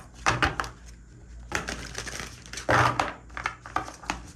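A deck of tarot cards being shuffled and handled, heard as several short rustling, slapping bursts with small clicks. The loudest burst comes a little under three seconds in.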